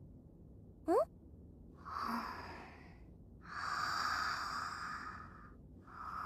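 A young girl's slow, breathy sleep breathing, long drawn breaths in and out, as in anime snoozing. About a second in comes a brief rising whistle-like glide.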